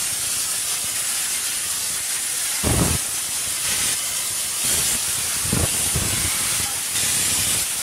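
A loud, steady hiss, with two dull thuds about three and five and a half seconds in.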